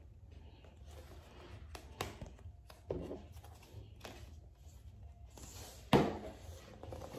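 Stiff cardboard pages of a Blu-ray box set's disc booklet being turned and handled: rustling with scattered soft knocks, and a sharper knock about six seconds in.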